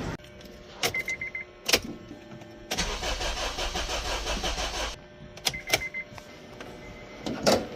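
Honda CR-V engine cranking on the starter for about two seconds without catching: cranks but no start. Clicks and short runs of beeps come before and after the cranking.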